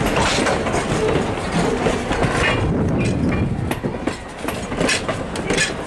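Railroad passenger coaches rolling past, their steel wheels clicking and clacking irregularly over the rail joints over a steady rumble.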